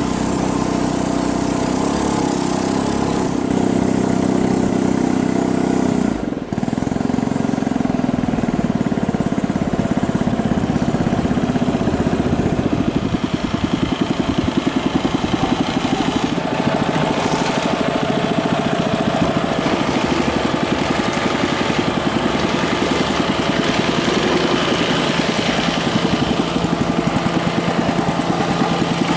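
Small boat engine running steadily, driving a wooden longboat along a river, with a brief drop in sound about six seconds in.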